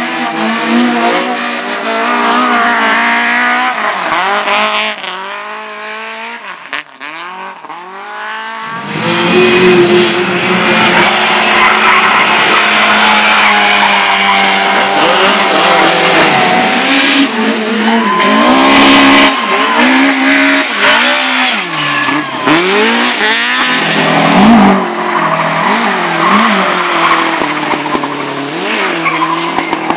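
Dirt-track race cars' engines revving hard, pitch rising and falling repeatedly as they accelerate and lift off. The sound fades for a moment around seven seconds, then is loud again from about nine seconds as cars come close.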